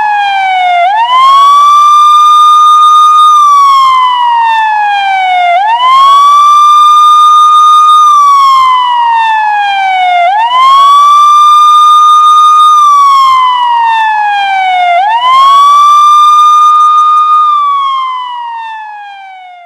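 Siren-sound ringtone: a wailing tone that rises quickly, holds high for about two seconds, then slides slowly down, repeating about every four and a half seconds. It fades out near the end.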